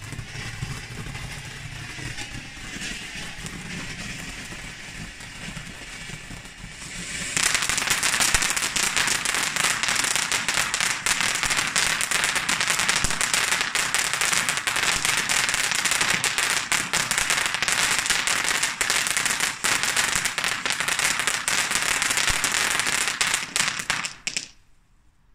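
Ground fountain firework hissing and crackling as it sprays sparks. It is fairly quiet at first, then flares up loud and dense about seven seconds in, and dies away quickly about a second before the end.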